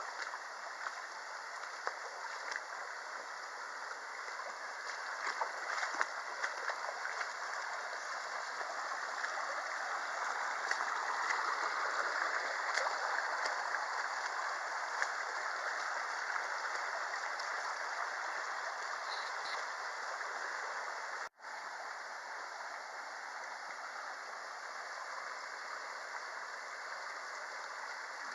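Mountain stream water rushing and burbling steadily over rocks, with a few small clicks and splashes in the first several seconds. The sound cuts out for an instant about three-quarters of the way through.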